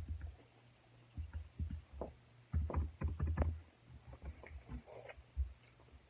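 Irregular low thumps and short sharp clicks of breakfast being eaten at a table: dishes and utensils knocking, with a cluster of louder knocks about halfway through.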